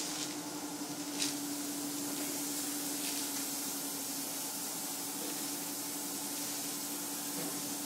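Steady background hiss with a constant low hum underneath, and a faint click about a second in.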